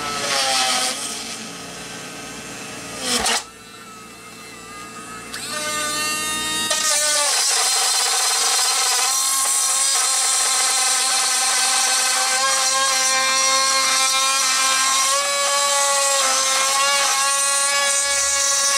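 Cordless Dremel rotary tool drilling a hole through the plastic deck of a model kit. It revs up briefly at the start, with a sharp click about three seconds in, then spins up again about six seconds in to a steady high whine that holds for the rest of the time.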